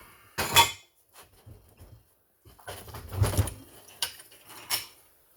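Scattered metallic clinks and knocks as tools and chainsaw parts are handled while the old chain comes off a Homelite XL12 chainsaw: a sharp knock about half a second in and a cluster with a dull thump around the middle.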